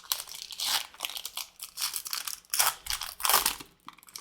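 Trading card pack wrapper being torn open and crinkled by hand: a run of irregular crackling rustles.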